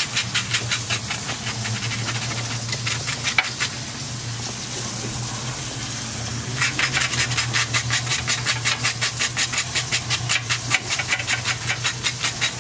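A knife scraping the burnt crust off a toasted hamburger bun in quick, even strokes, about five a second, easing off for a couple of seconds in the middle, over a steady low hum.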